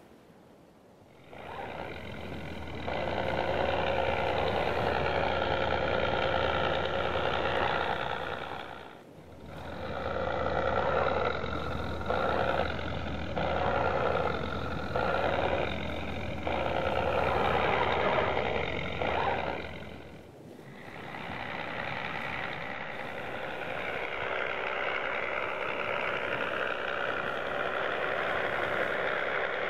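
Simulated engine sound from a 1/10 scale RC Jeep Wrangler JK Rubicon crawler's engine-sound system, running and rising and falling with the throttle. It drops away briefly about nine seconds in and again about twenty seconds in, and comes and goes in short spurts in between.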